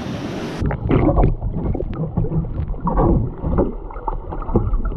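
Ocean surf churning around a submerged camera, heard muffled and dull as irregular sloshing surges. About half a second in, the open-air wind and surf hiss cuts off suddenly as the camera goes under the water.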